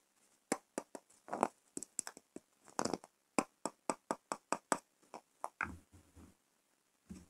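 Long fingernails tapping and clicking on hard soap spheres held in the hands, in a quick, irregular run of sharp taps with a few scratchy strokes. A few duller knocks come about two-thirds of the way in and again near the end, as the spheres are handled and set down.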